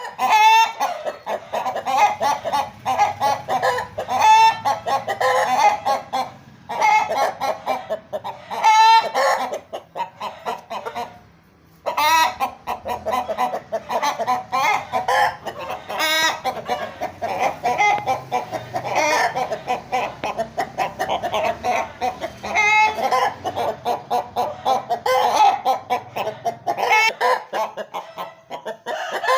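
Aseel chickens clucking almost without pause, with a louder, shriller call breaking out every few seconds. The flock goes briefly quieter about eleven seconds in.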